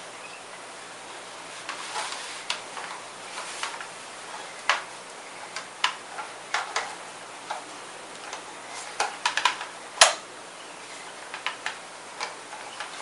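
A scattering of sharp, irregular clicks and snaps with no steady rhythm, the loudest about ten seconds in.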